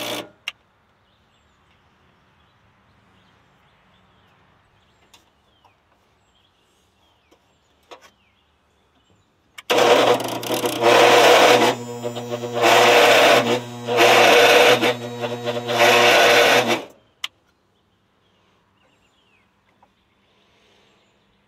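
Agway GT 1846 garden tractor's starter cranking the engine for about seven seconds, beginning about ten seconds in, in four or five surges without the engine catching. It is a weak crank on a low battery after a cold night, which the owner thinks seems like a weak starter. Faint birdsong can be heard before the cranking.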